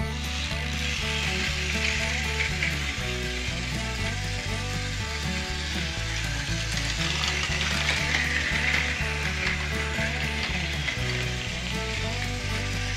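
Plarail 500 Series Shinkansen toy train's electric motor and gears running, with its plastic wheels on plastic track, a steady rattling hiss. Background music with a stepping bass line plays underneath.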